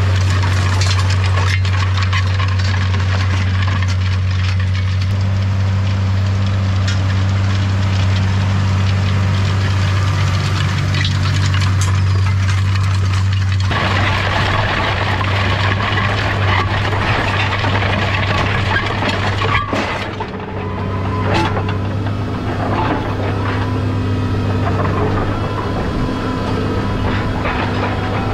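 Case IH Puma 180 tractor's engine running steadily under work, a constant low hum with rattles and clicks over it. About 14 seconds in the sound changes abruptly and becomes brighter and noisier.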